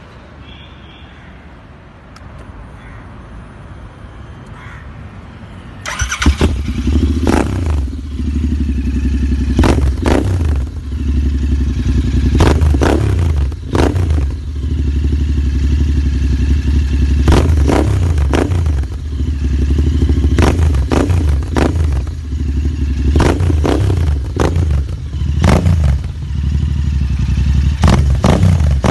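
Royal Enfield Interceptor 650's parallel-twin engine through a custom exhaust: it comes in suddenly and loudly about six seconds in, then runs with a deep, steady idle broken by repeated sharp throttle blips every two to three seconds.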